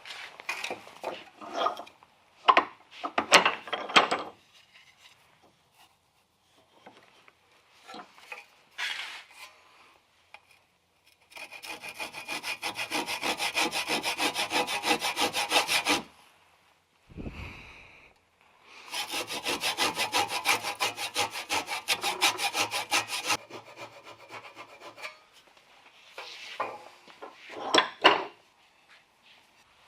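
Hand saw cutting wood in two runs of quick, even strokes, each about four to five seconds long. Between the runs there is a single dull thump. Scattered knocks and scrapes of wood being handled come before and after the sawing.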